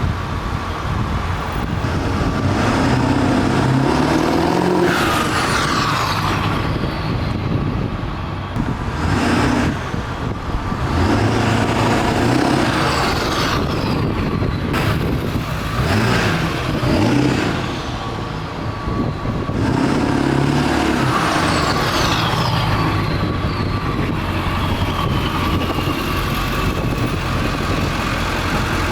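Straight-piped 7.3 L Powerstroke turbo-diesel V8 in a Ford F-250 revving up and settling back several times. After each rev a high whistle falls away.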